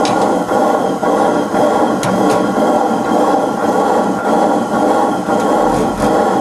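Old Crossley stationary engine turning over during a hand start, with a loud, steady mechanical clatter. A few sharp clicks come at the start and about two seconds in.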